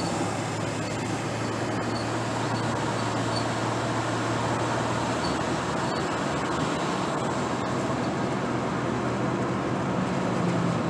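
Steady road and engine noise inside a moving car's cabin, with a low drone whose pitch changes partway through.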